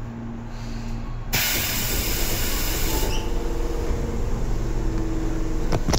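Stopped Tobu 10000 series train venting compressed air from its pneumatic system: a sudden loud hiss starts about a second in and eases after a couple of seconds, over the car's steady low hum.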